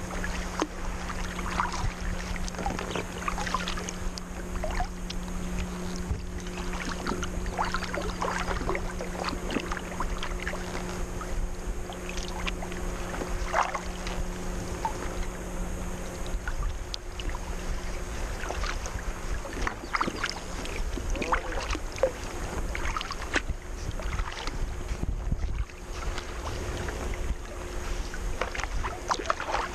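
Sea kayak paddling: irregular paddle splashes, drips and water lapping at the hull, over a steady low wash of water and light wind. A faint steady low hum runs under it and fades out about halfway through.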